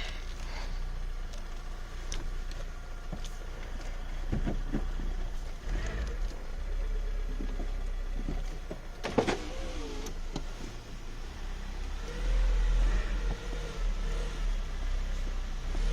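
Citroën BX four-cylinder petrol car running, a steady low engine rumble. There is a sharp click with a short wavering squeak about nine seconds in, and the rumble grows louder from about twelve seconds.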